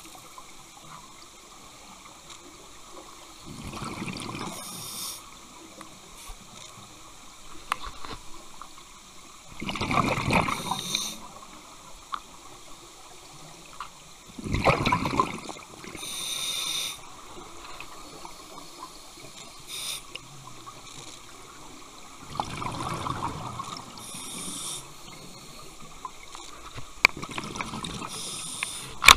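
Scuba diver breathing through a regulator underwater: bursts of exhaled bubbles every five to seven seconds, with softer hissing inhalations between them.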